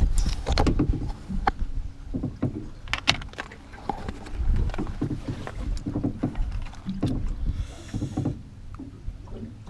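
Scattered knocks, clicks and rustles from handling gear and a freshly caught flathead on a boat deck, over a continuous low rumble.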